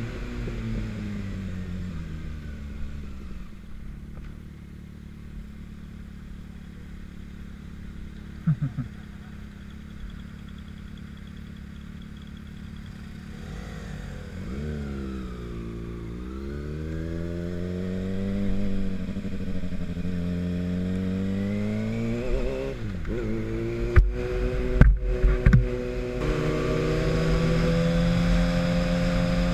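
A 2013 Kawasaki Ninja ZX-6R 636 inline-four with an M4GP slip-on exhaust, heard from the rider's seat: the revs drop away to a low, quiet running note, then rise and fall several times as the bike accelerates and shifts. A few short sharp knocks come about three-quarters of the way in, and the engine settles into a steady higher note near the end.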